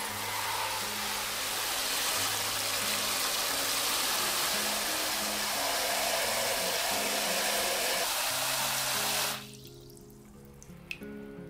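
Water spraying from a handheld shower head into a plastic basin: a steady rush that stops abruptly about nine seconds in. Soft background music plays throughout.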